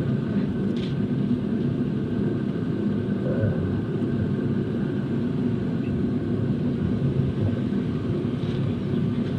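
Car engine running, a steady low rumble.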